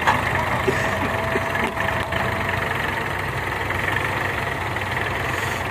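Tractor diesel engine running steadily at an even speed.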